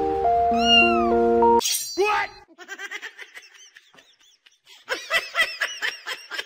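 Background music stops about a second and a half in, and a cat meows loudly. A run of short, quick chirping mews follows near the end.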